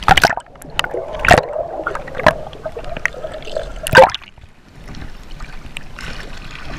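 Water splashing and gurgling around a chest-worn camera as its wearer swims, with sharp slaps of water against it about 1, 2 and 4 seconds in. After that it settles into a softer lapping hiss.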